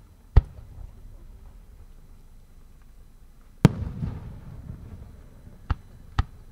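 Aerial firework shells bursting: a sharp boom just after the start, a second loud boom about three and a half seconds in that trails off in a rumbling echo, then two lighter bangs near the end.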